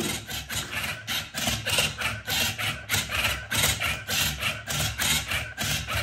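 MoYu cubing robot's motors rapidly turning the layers of a Rubik's cube during a solve: a fast, even run of short mechanical clacks, several a second.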